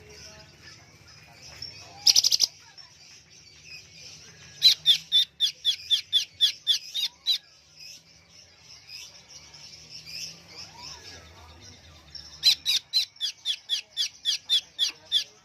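Greater green leafbird (cucak hijau) singing hard: two runs of about a dozen quick, repeated up-and-down notes at roughly four a second, one some five seconds in and one near the end, with a brief rattling burst about two seconds in.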